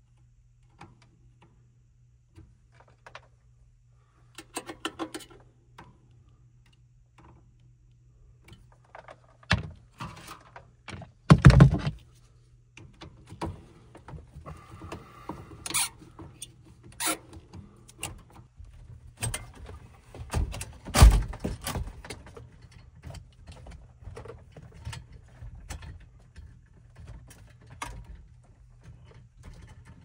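Hand-tool work on an air handler's electrical box: scattered clicks, scrapes and knocks of a screwdriver on the breaker terminals and metal cabinet, with two loud metal thumps, one about eleven seconds in and one about twenty-one seconds in. A steady low hum runs underneath.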